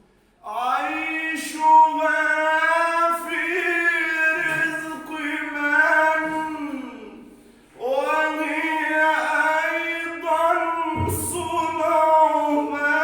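A voice singing an unaccompanied Arabic nasheed in two long, drawn-out phrases, with a short breath-break about halfway through.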